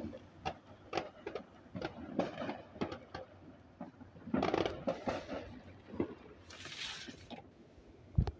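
Consumer aerial fireworks crackling: scattered sharp pops and crackles from bursting stars, with a louder burst about four and a half seconds in. A brief high hiss follows near seven seconds, and a heavy thump comes just before the end.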